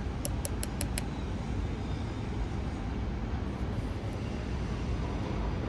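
Steady low rumble of city traffic ambience, with five quick, light high-pitched clicks in a row about a quarter second to one second in.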